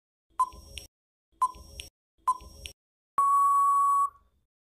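Quiz countdown timer sound effect: three short beeps about a second apart, then one long steady beep of about a second signalling that time is up.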